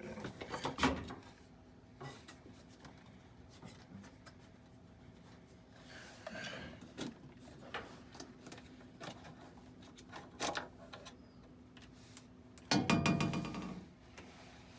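Scattered clicks and knocks of parts being handled during work on a washing machine's drain pump assembly, with a louder clattering rattle about thirteen seconds in.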